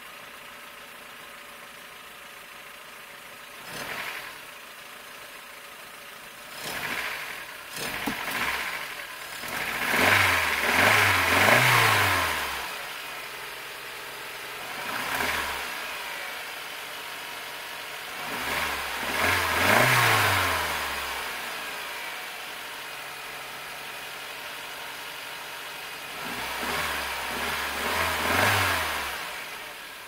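1995 Mercedes-Benz E200's 2.0-litre four-cylinder petrol engine idling and being revved from idle again and again. Each rev rises and falls back to a steady idle. The strongest revs come about a third of the way in and near the middle, with another near the end.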